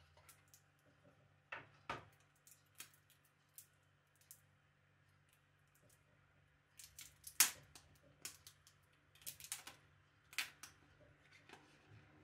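Clear plastic protective film crinkling and peeling off a new smartphone, among light clicks and taps from handling the phone and its box. The sounds come as short separate strokes, the sharpest about seven seconds in.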